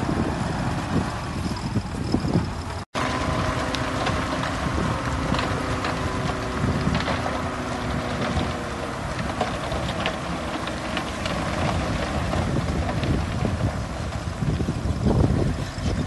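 Hyundai dump truck's diesel engine running as the hydraulic hoist tips the bed and the load of soil slides out, with wind on the microphone. The sound breaks off for an instant about three seconds in, and a steady hum continues after it.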